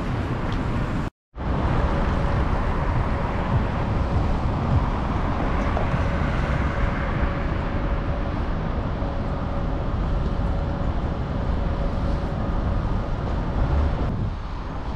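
City street traffic noise: a steady rumble of cars on the road, with a faint steady hum through the middle. The sound cuts out completely for a moment about a second in and drops somewhat just before the end.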